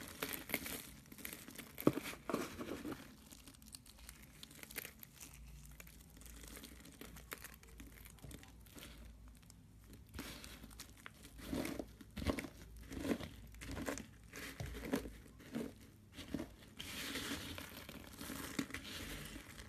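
Dry soap shavings crushed and scrunched by hand: a crisp crinkling, crackling crunch. It comes louder at the start, again past the middle and near the end, and softer in between.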